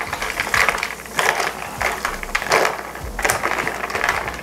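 Long metal bar spoon stirring ice cubes in a tall glass, the ice clattering and clinking against the glass in repeated bursts.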